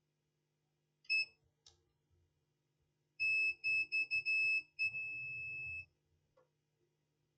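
Digital multimeter continuity beeper: one short high beep, then a run of choppy broken beeps and a steady tone about a second long. This is the sign of near-zero resistance between the probes; the resistor under test reads very low.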